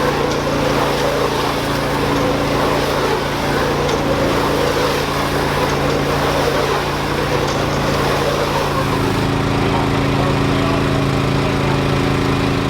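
Tractor engine running steadily under load, its note shifting slightly about nine seconds in.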